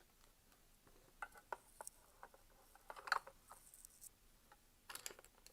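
Small plastic clicks, taps and a brief scrape as miniature toy-fridge shelves are slid into place, with a cluster of clicks about three seconds in and again near the end.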